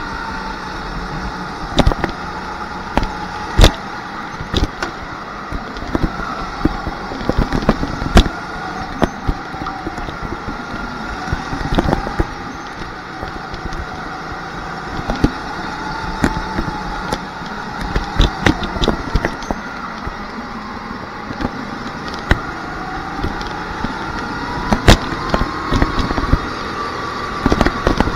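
Rental go-kart running flat out, heard from onboard: its motor note rises and falls in pitch with speed through the corners and climbs over the last few seconds. Frequent sharp knocks and crackles sound over it.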